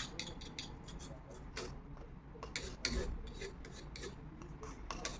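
Light rubbing and scraping with scattered small clicks: hands working a loosened piece with wood glue to stick it back on.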